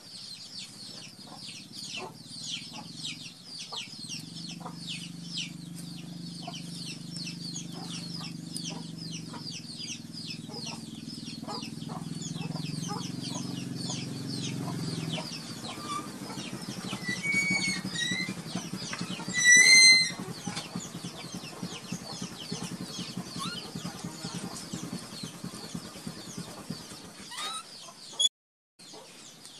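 Chickens clucking, with many quick high-pitched chirps throughout. A low steady hum runs through the first half, and one short, loud, high call comes about twenty seconds in.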